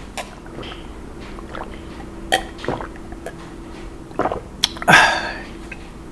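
Close-miked mouth sounds from a mukbang eater: scattered lip smacks and clicks, then sipping and swallowing from a cup. A short, loud, breathy burst comes about five seconds in.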